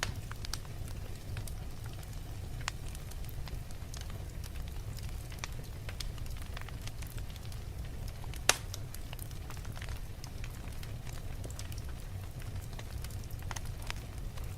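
Wood fire crackling, with irregular small pops and snaps over a steady low rumble, and one much louder pop about eight and a half seconds in.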